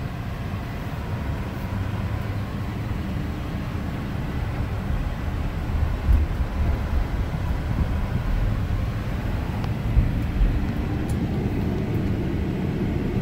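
Vehicle's engine and road rumble heard from inside the cab while driving slowly, steady and low, with a couple of short low thumps about six and ten seconds in.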